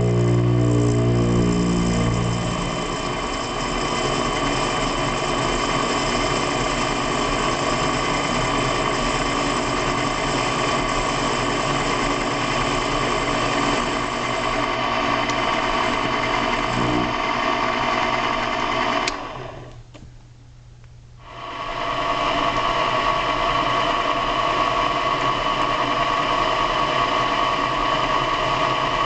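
Small benchtop machine tool running steadily: a geared motor whine made of several steady tones over a mechanical hum. About two-thirds of the way in it cuts off suddenly for a couple of seconds, then resumes just as before.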